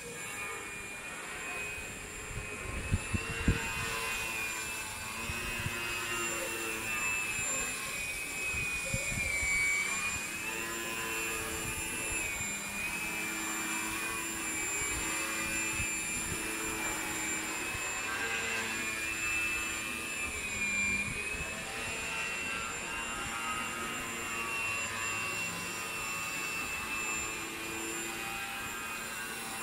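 Electric motor and propeller of a small foam RC 3D plane in flight, a steady high whine that dips and swells twice as the throttle changes. A few low thumps about three seconds in.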